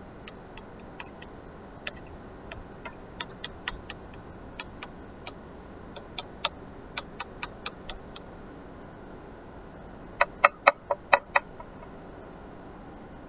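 Light, irregular sharp clicks, like small taps, then a louder quick run of about six clicks about ten seconds in.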